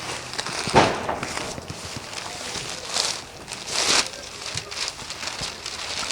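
Packaging being opened by hand: crinkling and rustling, with a louder crackle about a second in and two more around three and four seconds.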